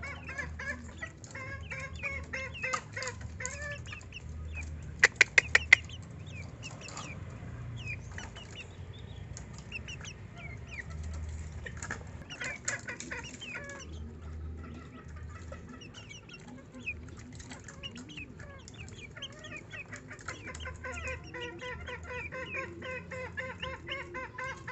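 Young bekilus, green junglefowl × bekisar hybrid chicks, calling with a scatter of short high cheeps as they peck for food from a hand. A quick run of four sharp clicks comes about five seconds in.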